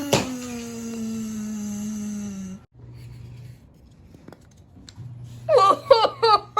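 A voice holds a long low moan that slowly sinks in pitch for about two and a half seconds. After a pause, a quick run of short, high, pitch-bending cries begins about five and a half seconds in.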